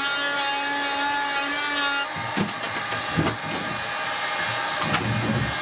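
Power tool running at a steady buzz, then from about two seconds in cutting into the boat's plywood and wood trim, the sound turning rougher and uneven with a few knocks.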